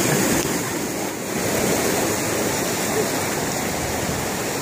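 River water rushing steadily over rocks: the constant roar of a rapid or small cascade.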